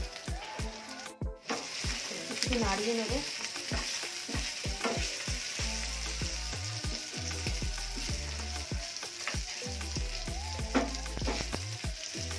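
Chicken pieces sizzling steadily in butter in a nonstick frying pan, with a wooden spatula scraping and knocking against the pan as they are stirred from about halfway through.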